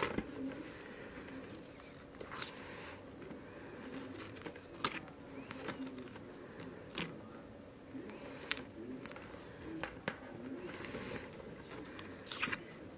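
Pages of a spiral-bound desk calendar being flipped over one at a time by hand: a short paper snap with a brief rustle about every two seconds, around eight flips in all.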